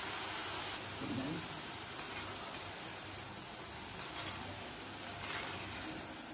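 Hot oil sizzling steadily in an iron kadai as drops of gram-flour batter fall through a large-holed perforated ladle and fry into boondi. The batter is fresh in very hot oil, with its water still cooking off. A few faint clicks sound through it.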